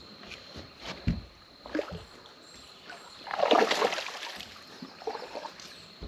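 A largemouth bass released over the side of a boat, splashing into the water about three seconds in; the splash is the loudest sound. Two dull thumps come before it.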